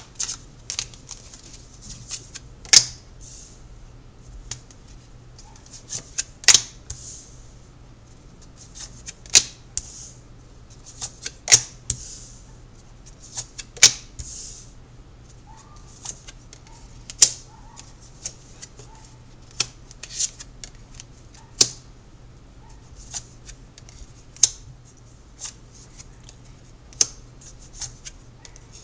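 A tarot deck being shuffled by hand: sharp card clicks and short papery swishes every second or two, at an uneven pace.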